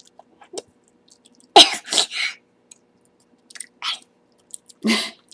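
A child making short breathy mouth sounds, a quick cluster of three and then two single ones, like sharp exhales and sputters, while sucking on a very sour candy lollipop.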